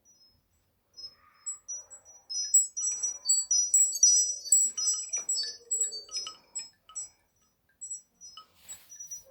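Nokia C5-03 ringtone of high, tinkling chime notes: a few scattered notes at first, a dense flurry of overlapping notes in the middle, then thinning out again.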